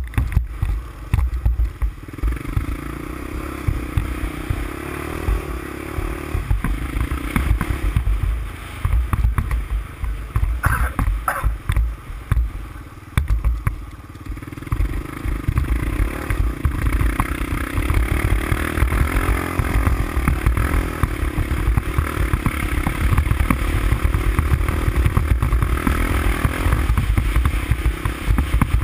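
Honda ATC350X's single-cylinder four-stroke engine running as the machine is ridden, the engine note easing off about eight seconds in and again between about ten and fourteen seconds in, then pulling steadily again.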